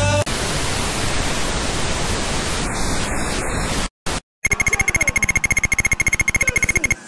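Television static hiss for about four seconds, cut off by a brief silence, then a rapid, even run of electronic clicks over a steady high beep, the sound of on-screen text typing itself out letter by letter.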